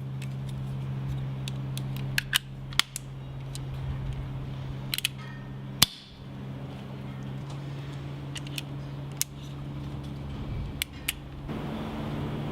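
Colt Single Action Army 4.5 mm steel BB revolver: several sharp metallic clicks, typical of the hammer being cocked, and one louder crack of a shot about six seconds in, over a steady low hum.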